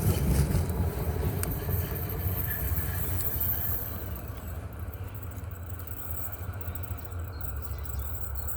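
Low rumble of a passing tram, loud at first and fading gradually as it moves away.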